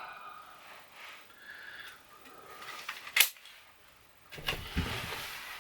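A single shot from an Umarex RP5 .22 CO2 air gun, one sharp crack about three seconds in. Fainter handling noise follows for about a second near the end.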